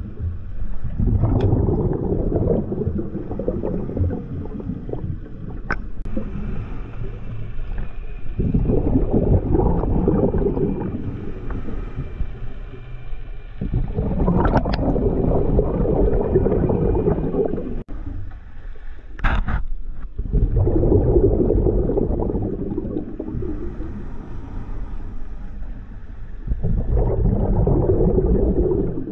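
Underwater, a scuba diver's regulator exhales, the bubbles rushing in five long bursts about every five seconds, with quieter inhales between them. A brief high-pitched sound comes about two-thirds through.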